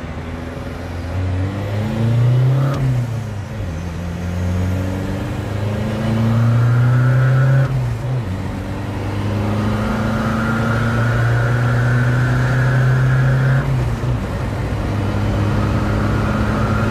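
Isuzu 1.9-litre turbodiesel with an aftermarket twin-turbo kit pulling hard under full throttle, heard from inside the cab. The revs climb in long runs and drop back at gear changes about three, eight and fourteen seconds in.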